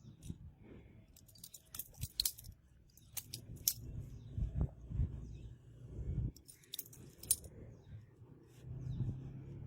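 Handmade butterfly knife being handled: metal handles clicking and clinking in several quick bursts of sharp clicks, with dull low thumps in between.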